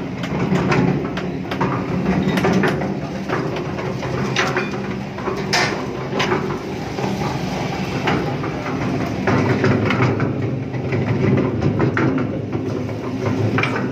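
A 500-litre concrete mixer running, its drum turned by a 7.5 hp electric induction motor: a steady mechanical hum with irregular clicks and knocks from the turning drum and frame.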